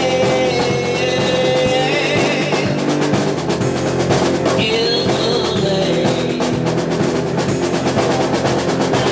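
Live rock band playing: electric guitar through an amplifier over a drum kit, with steady drum strikes throughout.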